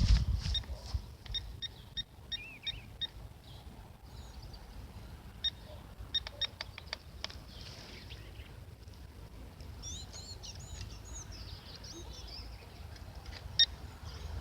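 Outdoor birds: a series of short, sharp chirps, then a brief warbling song about ten seconds in, over a low rumble of wind on the microphone.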